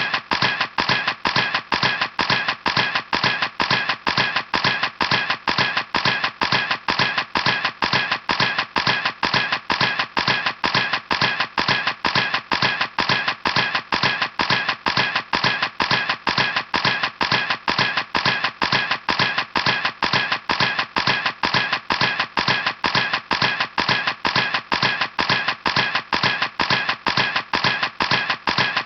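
Camera shutter clicking over and over at an even pace, about three clicks a second.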